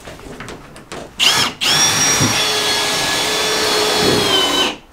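Cordless drill run into a carpeted plywood boat deck. A short burst spins up about a second in, then a steady run of about three seconds slows slightly just before it stops.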